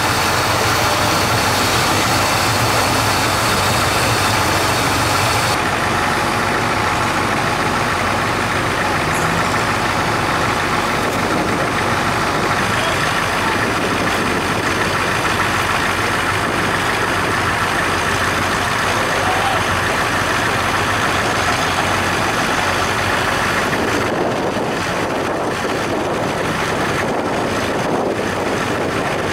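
Off-road truck engines running steadily and loudly. The sound changes abruptly about five seconds in and again near the end.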